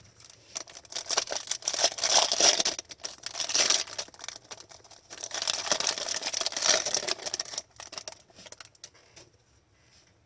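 Foil trading-card pack wrapper crinkling as it is torn open and the cards are pulled out, in two long spells of rustling with a short lull between, then a few light clicks near the end.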